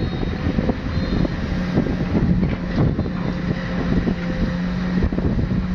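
Diesel engine of heavy construction machinery running steadily with a low, even hum. Wind buffets the microphone over it.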